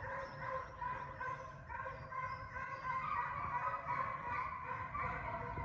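A pack of foxhounds baying in chorus, many overlapping voices running on without a break.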